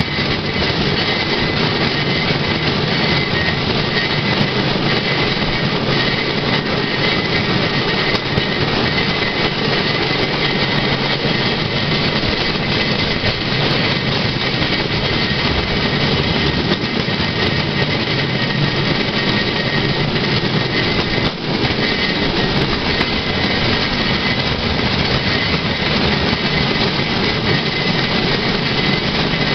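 Swedish pedal rail bike (Fahrraddraisine) rolling along old railway track: a steady rumble of its wheels running on the rails.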